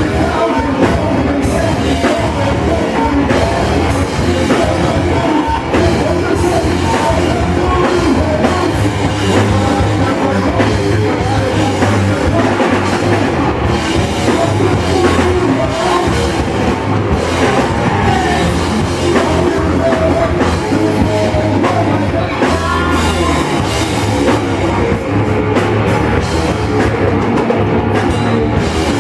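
Loud rock music: a band playing with a drum kit, bass and guitars, with singing, going steadily without a break.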